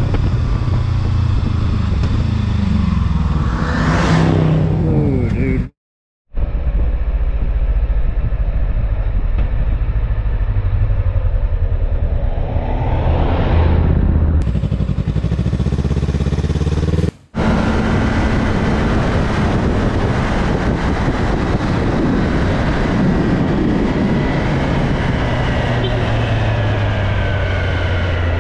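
Sport motorcycle engine heard from the rider's seat over steady wind and road noise, revving up sharply twice as the rider accelerates. The sound cuts out briefly about six and about seventeen seconds in, and another motorcycle runs on after the second cut.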